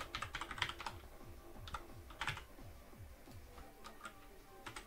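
Computer keyboard typing: a quick flurry of keystrokes in the first second, then a few scattered key presses about two seconds in and again near the end.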